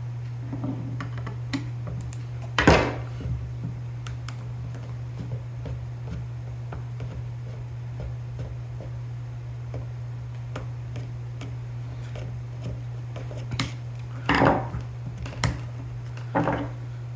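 Small tools and airsoft gun parts handled on a workbench: scattered light clicks and taps, with a louder clatter about three seconds in and a couple more near the end, over a steady low hum.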